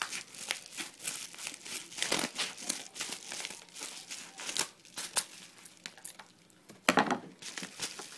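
A shipping package being opened by hand: irregular crinkling and tearing of the packaging, with a louder burst about seven seconds in.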